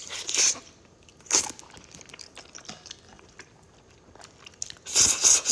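Close-miked eating sounds: chewing with a few short, sharp bites, the loudest near the end.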